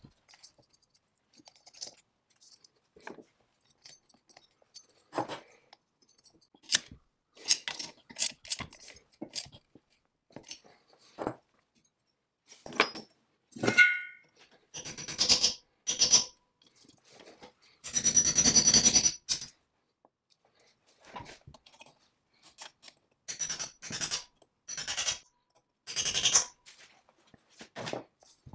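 Metal hand tools and engine parts being handled during reassembly of a chainsaw powerhead: scattered clinks, taps and scrapes of steel on metal, with a longer scraping burst about two-thirds of the way through, the loudest sound here.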